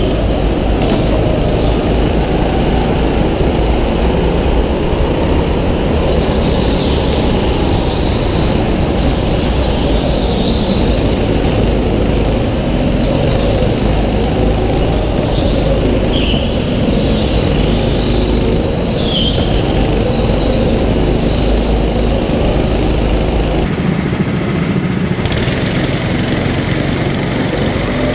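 Onboard sound of a racing go-kart's engine running hard through laps, with the noise of other karts close around. Near the end it changes abruptly to the sound from another kart's onboard camera.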